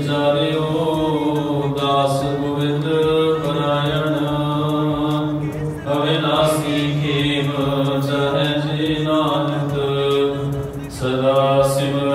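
Music without words: a gliding melody over a steady low drone.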